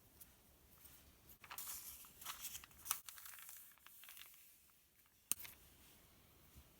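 Paper pages of a sales circular rustling as a page is turned, with two sharp taps, about three seconds in and a little past five seconds.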